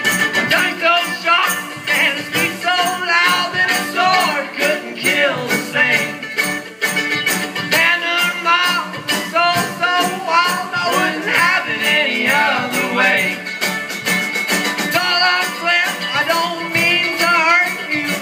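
Live string band playing on banjo, acoustic guitar and mandolin over a drum kit, with a steady strummed and picked rhythm.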